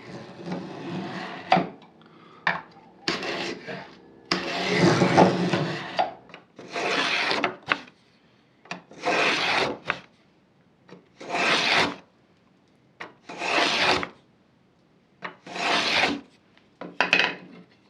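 Hand tool being pushed along a wooden trim piece to cut a decorative moulding: rasping strokes on the wood. They are uneven at first, then settle into a steady run of about six strokes, each about a second long and roughly two seconds apart.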